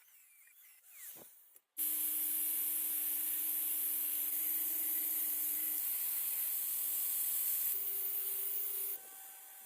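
Power sanding tool running steadily against the work: a loud abrasive hiss over a steady motor hum, starting abruptly about two seconds in and cutting off suddenly near the end.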